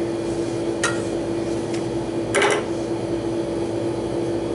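Two sharp metallic clicks of a hand tool working on a small condenser fan motor, about a second in and, louder, about two and a half seconds in, over a steady machinery hum with one constant tone.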